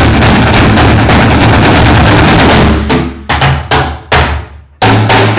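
An ensemble beating sticks on plastic barrels: a fast, dense barrage of strokes that breaks off about two and a half seconds in into a handful of separate accented hits, each leaving a low ring, with one last big hit near the end.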